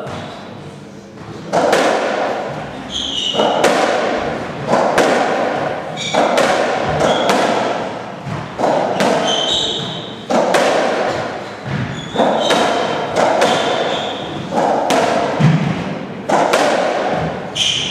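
A racketball rally: the ball is struck by rackets and smacks off the walls of a squash court about once a second, each hit echoing, starting about a second and a half in. Short high squeaks of court shoes on the wooden floor come between the hits.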